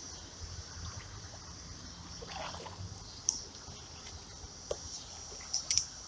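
Shallow creek water trickling steadily over a riffle. A few sharp clicks come in the second half, the loudest pair near the end.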